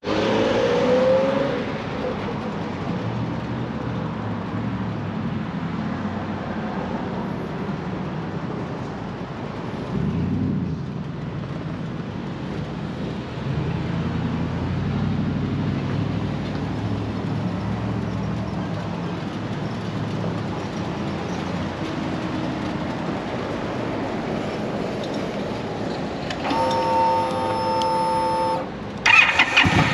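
Steady road traffic from cars passing on a busy street. Near the end comes a brief steady whine, then the 2016 Indian Scout's V-twin engine starts with a sudden rise in loudness.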